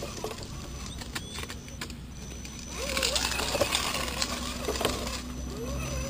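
Axial Jeep Wrangler RC truck's electric motor and gears, heard from a camera mounted on the truck: a whine that rises and falls with the throttle, with gear rattle and clicks as it drives over dirt, louder from about three seconds in.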